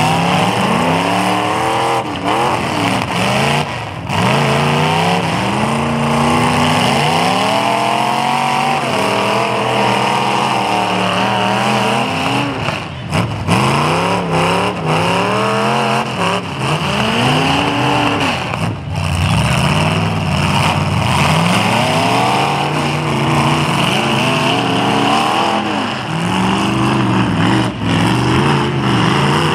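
Several demolition derby cars' engines revving hard and dropping off again and again, with sharp bangs of cars colliding now and then.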